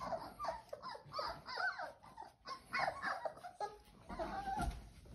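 A litter of 4-week-old Old English Sheepdog puppies whimpering and squealing, many short high cries rising and falling and overlapping one another.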